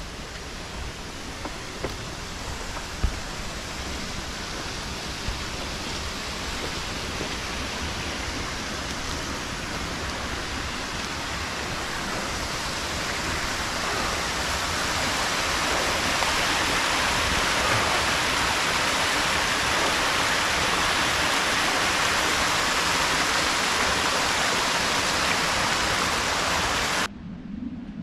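Small woodland waterfall rushing, growing louder as it is approached on foot, then holding steady; it cuts off suddenly near the end. A few light knocks in the first few seconds.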